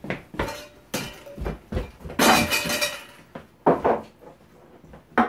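Kitchen clatter: dishes, glassware and utensils clinking and knocking as they are handled and set down on a counter. The knocks come one after another, with a longer clinking rattle about two seconds in.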